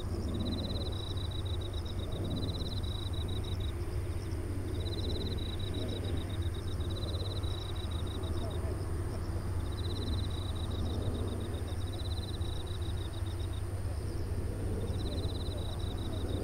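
Steady low rumble of a Boeing 747-400's four jet engines climbing and turning overhead at a distance. Insects trill in pulsed bursts a few seconds long, repeating every couple of seconds, with a thin steady high buzz beneath.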